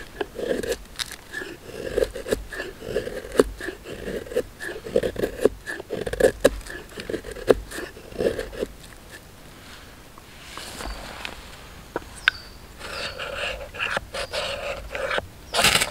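Knife blade shaving thin curls off a dry stick, a steady run of short carving strokes while making a feather stick. After a pause, the knife spine is scraped hard down a ferrocerium rod several times to throw sparks onto tinder, the loudest strike just before the end.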